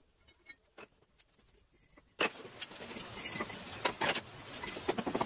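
Irregular metallic clinks and knocks of hot steel being handled on an anvil, over a rushing noise that starts about two seconds in.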